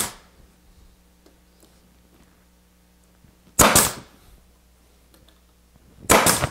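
Grex 18-gauge brad nailer firing brads into plywood: a sharp shot right at the start, another about three and a half seconds in, and a third near the end.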